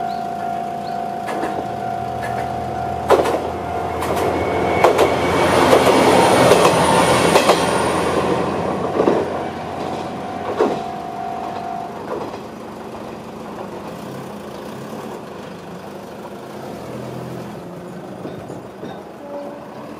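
A Japanese level-crossing alarm rings steadily while a single Isumi 300-series diesel railcar runs over the crossing, its wheels giving a handful of loud clacks as it passes, loudest in the middle. The alarm cuts off about two-thirds of the way through, leaving the lower sound of road vehicles moving off across the tracks.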